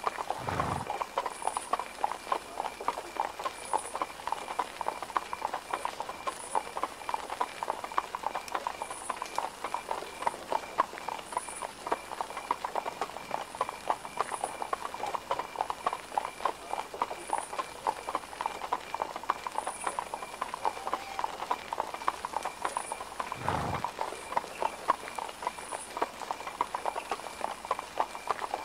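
Horse hooves clip-clopping steadily on cobblestones, a dense run of quick clicks, with two low thuds: one about a second in and one near the end.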